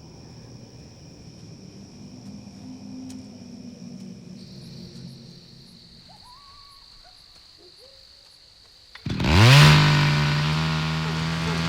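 Insects chirping in a steady, faint night ambience. About nine seconds in, a two-stroke chainsaw suddenly fires up loud, its pitch sweeping up and then holding at a steady high rev.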